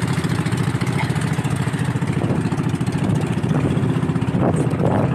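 Outrigger boat's engine running steadily while the boat is underway, a low drone with rapid pulses and a steady hiss above it.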